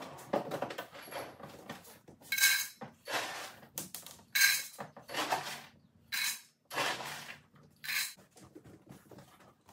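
Dog drinking water from a bowl on the floor: irregular sloshing and lapping noises, with the bowl clinking.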